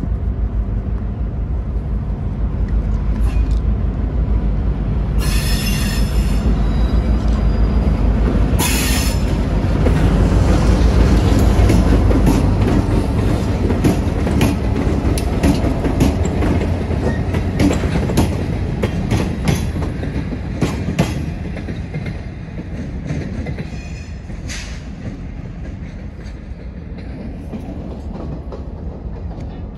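Diesel-hauled freight train rolling past with a steady low rumble. The wheels squeal briefly twice, about five and nine seconds in, then a long run of clicks from wheels over rail joints follows. The sound fades over the last several seconds.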